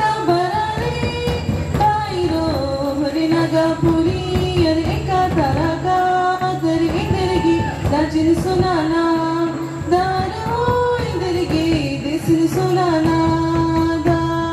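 Adivasi folk song for a group dance: sung melody with long held, gliding notes over a drum keeping a steady beat.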